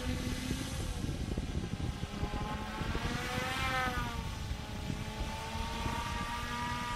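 A 3D printed VTOL tailsitter's motors and propellers humming in flight, the pitch rising and then falling again about three to four seconds in as the throttle changes. Wind buffets the microphone with a low rumble underneath.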